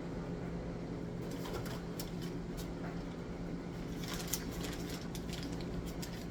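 Packages of food being handled, with light rustling and a few soft clicks and knocks, over a steady low hum.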